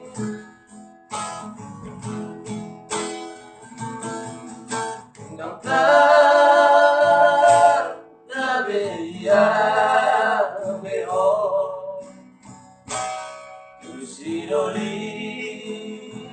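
Acoustic guitar strumming chords, with two long, loud held melody notes rising over it about six and nine seconds in.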